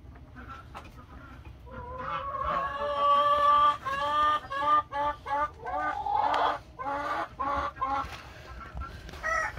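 A chicken calling loudly: one long held call about two seconds in, then a string of short repeated clucking notes over several seconds.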